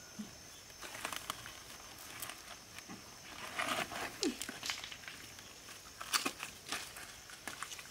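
Scattered rustling, crinkling and light clicks of a coiled plastic hose and woven plastic basket being handled and lifted onto a person's back, with shuffling on loose creek-bed stones.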